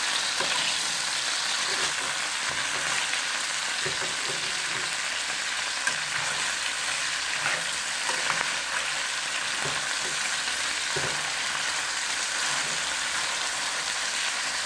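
Caterpillars frying in hot oil in a pan: a steady sizzle, with a few faint knocks along the way.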